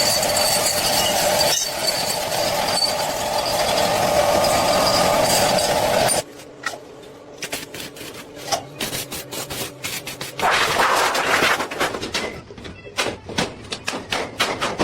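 Metalworking noise: a steady, harsh rasping sound for about six seconds that cuts off abruptly. It is followed by scattered sharp taps and clicks and a brief burst of rasping a little past the middle.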